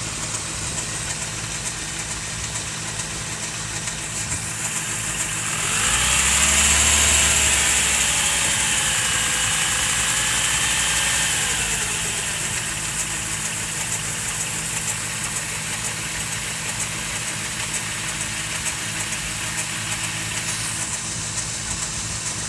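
1988 Toyota 4Runner's 22RE four-cylinder engine idling steadily. About six seconds in it is revved up for several seconds, with a whining tone that rises and bends with the revs, then drops back to idle.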